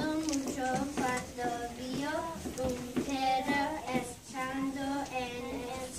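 A young child singing a simple tune in one clear voice, with a string of short held notes.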